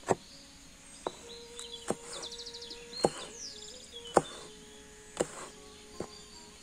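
Kitchen knife cutting pineapple and then green capsicum on a wooden chopping board, with a sharp knock each time the blade hits the board, about once a second. A small bird chirps and trills in the middle.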